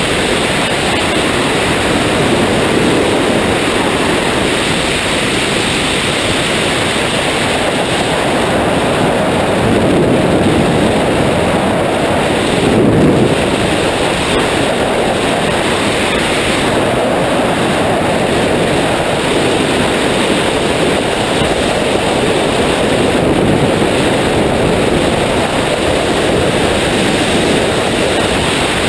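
Loud, steady rush of freefall wind buffeting a skydiver's camera microphone, with small swells in strength.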